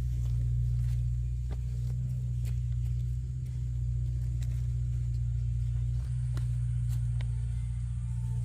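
A motor running steadily with a low drone, with scattered light clicks and knocks over it.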